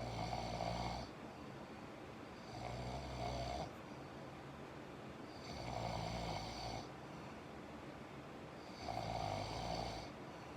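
Snoring during sleep: four snores about three seconds apart, each lasting about a second, with quieter gaps between them.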